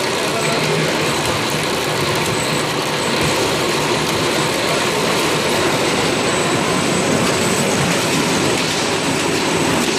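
Woodworking machinery on a veneer peeling line running steadily, a log debarking and rounding machine's spiral rollers turning and grinding a log, and a spindleless veneer peeling lathe with clipper. The result is a loud, even rumbling clatter.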